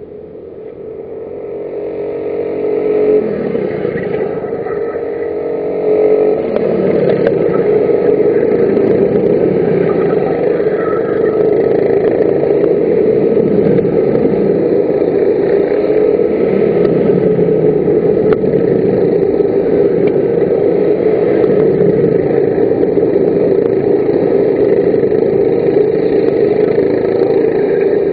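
Engines of F-400 racing karts at speed on the circuit. Over the first few seconds the sound grows and climbs in pitch twice as karts accelerate closer, then holds loud and steady.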